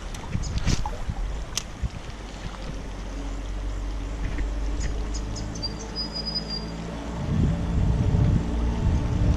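Spinning reel being wound in, a steady whirring hum from its gears and spool, with a few light clicks near the start. Wind buffets the microphone, loudest about seven seconds in.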